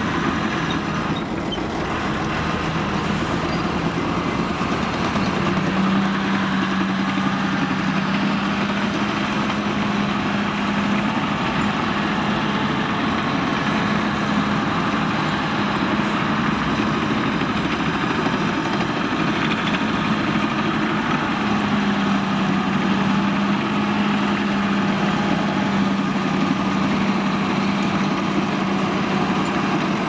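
Caterpillar D5G LGP crawler dozer's diesel engine running steadily as the machine tracks over and grades dirt. The engine note steps up a few seconds in, eases through the middle and picks up again after about twenty seconds.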